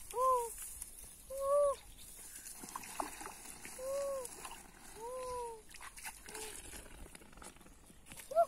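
An animal calling: about five short calls, each rising then falling in pitch and about half a second long, one to one-and-a-half seconds apart. Faint trickling water sits underneath.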